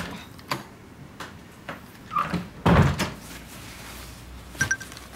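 Wooden door being opened and pushed to, with scattered clicks and knocks and a paper grocery bag rustling; the loudest is a knock with a rustle about three seconds in. A brief faint electronic chime sounds near the end.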